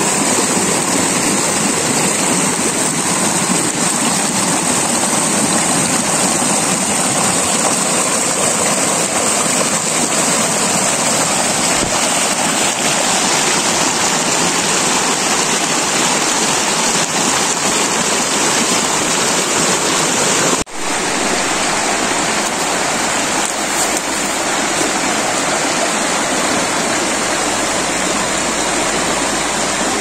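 Shallow rocky mountain stream rushing and splashing over boulders and small cascades, a steady rush of water. It breaks off for an instant about twenty seconds in and resumes with a slightly different tone.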